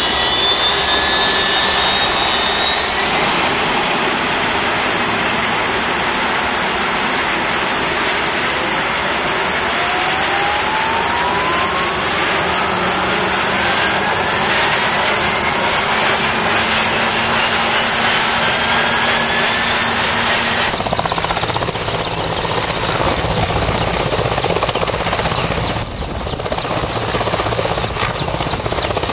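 Mi-8 helicopter's twin turboshaft engines and rotor running close by, loud and steady, with a turbine whine rising in pitch over about ten seconds. The sound changes abruptly twice near the end.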